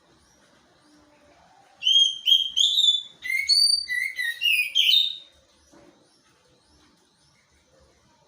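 A pet songbird singing a quick run of clear whistled notes, some gliding up and down in pitch, lasting about three seconds and starting about two seconds in.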